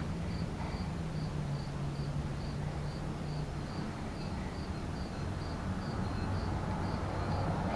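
A cricket chirping steadily, short high chirps about three times a second, over a low steady hum that fades about halfway through.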